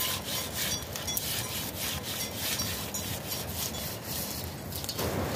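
A hand scrubbing the inside of a brass bowl, in repeated rubbing strokes a few times a second, stopping about five seconds in.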